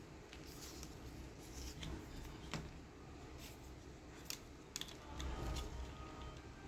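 Scattered sharp clicks and light handling noises from the plastic parts of a toy cap gun being worked on, a few seconds apart, with a small cluster about five seconds in.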